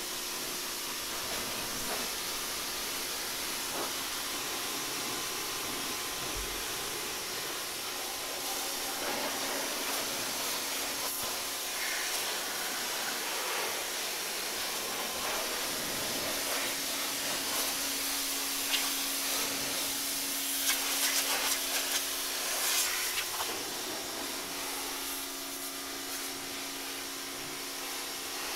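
Pressure washer jet spraying water onto a tractor's engine and frame, a steady hiss that rinses off soaked-in degreaser and grease, with a steady hum underneath. Louder spattering comes and goes about two-thirds of the way through as the spray hits different parts.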